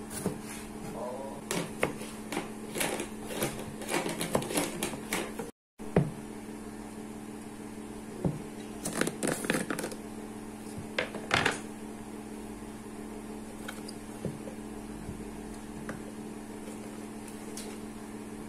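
Kitchen knife slicing a tomato on a plastic cutting board: a quick run of taps and clicks. After a short break, a plastic container of spring onions is handled with a few sharp knocks. A steady low hum runs underneath.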